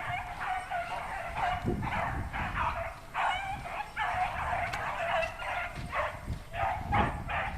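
A pack of beagles baying in chorus while running a rabbit, many overlapping cries with no break, with a couple of low thumps.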